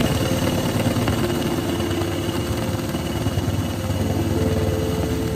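Power drill with a spade bit boring a hole through a wooden countertop, running continuously. Its pitch drops about a second in and rises again near the end.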